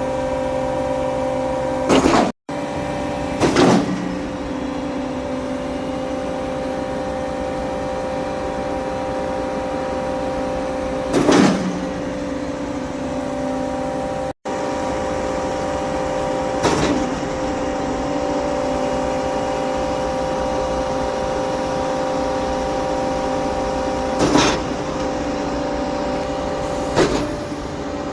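Sany 38-metre truck-mounted concrete boom pump running steadily while slowly pumping water through the line to wash it out. Its engine and hydraulics give a steady hum, with a short sharp knock every few seconds.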